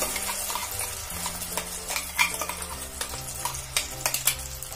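Wet ground onion, ginger, garlic and chilli paste sizzling as it drops into hot oil in a stainless steel kadhai. A steel spoon scraping out a steel mixer jar gives several sharp clicks and taps.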